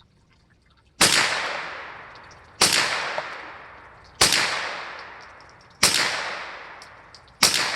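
Ruger PC9 9mm carbine firing five deliberate shots about a second and a half apart, each loud crack trailing off in a long fading tail.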